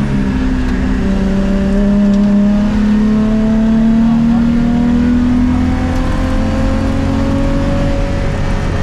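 Rally car engine heard from inside the cabin, pulling hard under acceleration, its note climbing slowly and steadily through a gear.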